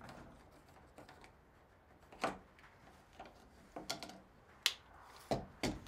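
A few separate light clicks and knocks as small tools and plastic plumbing fittings are handled on a wooden floor. The last two, near the end, are heavier knocks.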